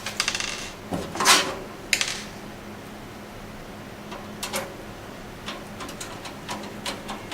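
Screwdriver and screws working on a PC case fan mounted to a metal case: a short rattle, two brief scrapes, then scattered small metallic clicks over a low steady hum.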